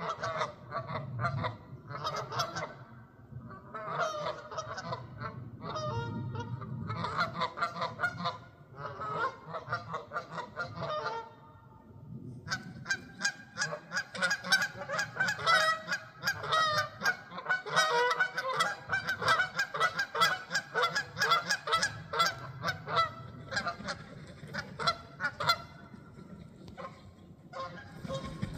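A flock of geese honking. The calls come in scattered bunches at first, then swell about halfway through into a dense run of many overlapping honks, which thins out near the end.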